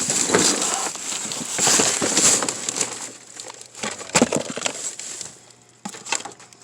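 Rustling and crinkling of trash and debris being handled, loudest in the first three seconds, with a few sharp knocks about four seconds in, then quieter.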